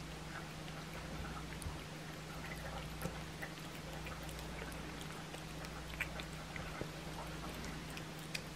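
Blue tortoiseshell cat eating raw chicken back and green tripe off a plate: wet chewing and licking with small irregular clicks and crunches. A steady low hum runs underneath.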